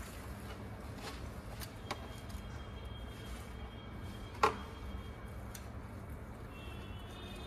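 Hand-wiping of a washed motorcycle with a cloth: faint clicks and taps of hands and cloth on the bike's parts over a steady low background rumble, with one sharper click about four and a half seconds in.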